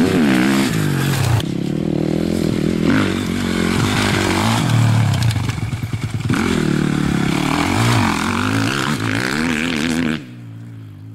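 Dirt bike engine revving as it is ridden hard, its pitch climbing and falling repeatedly with the throttle and gear changes. It cuts off about ten seconds in.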